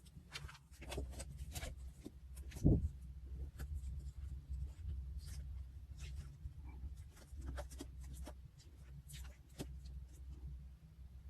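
Paper-crafting handling sounds on a diary page: scattered light scratches, rustles and small taps of paper, tape and stickers being worked, with one soft thump about three seconds in, over a steady low hum.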